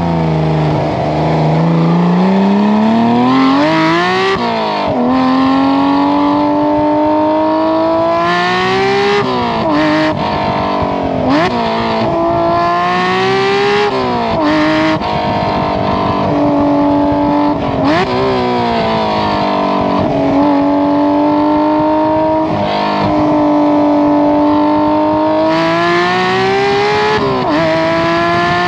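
Porsche 992 GT3's naturally aspirated 4.0-litre flat-six heard at the tailpipes through a Valvetronic Designs stainless valved exhaust with 200-cell headers, while driving. The note climbs in pitch under acceleration and drops sharply at each upshift, several times over, with steadier cruising stretches in between.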